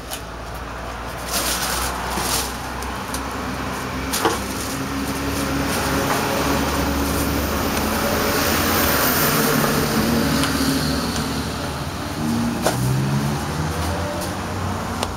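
A motor vehicle passing on the street, its engine and tyre noise swelling slowly to a peak about nine seconds in and then fading. A few sharp knocks come from garbage bags and a box being handled nearby.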